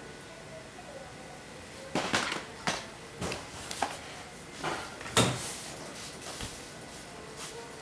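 A series of hard plastic clicks and knocks as a VHS tape and its case are handled, about half a dozen over a few seconds starting about two seconds in. The loudest comes a little past the middle.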